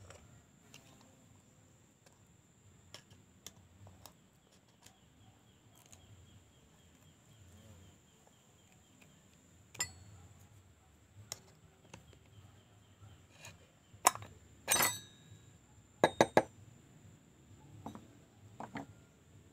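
Scattered metallic clicks and clinks of hand tools and small metal parts being handled, with a louder cluster of clinks and a short rattle about fifteen seconds in. A faint steady high whine runs underneath.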